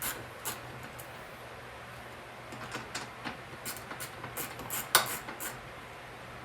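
Hand ratchet clicking in short strokes while backing out an 11 mm bolt: a brief run of clicks at the start, then a longer run from about two and a half seconds in, the sharpest click near five seconds.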